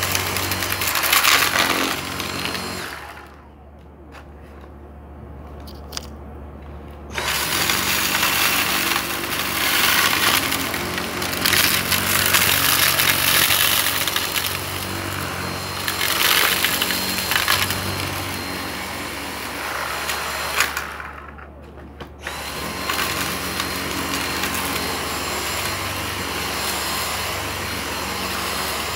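Dyson V6 cordless stick vacuum running with its motorised floor head, with small bits of debris crackling and rattling as they are sucked up. The noise drops away twice, about three seconds in for roughly four seconds and again briefly near twenty-one seconds, before coming back at full strength.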